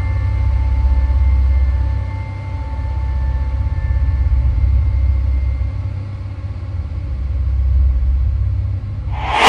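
Wind buffeting a phone's microphone: a low rumble that swells and fades in gusts, with a few faint steady tones that die away within the first few seconds. A sudden loud burst of hiss cuts in near the end.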